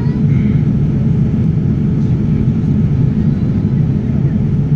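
Steady low roar of a Boeing 787 Dreamliner's cabin in flight, the engine and airflow noise heard from a window seat.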